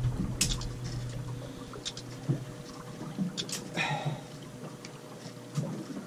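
Quiet ambience aboard a small boat at sea: water lapping at the hull under a faint steady hum, with a few scattered small knocks and clicks.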